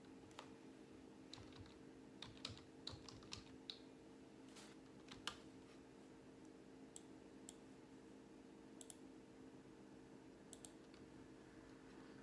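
Scattered light clicks and taps, made while clicking and underlining through a text: a quick run of them about two to four seconds in and a few more later. A faint steady hum sits underneath.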